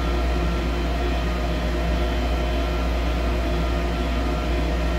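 Steady low mechanical hum with several steady tones, unchanging throughout.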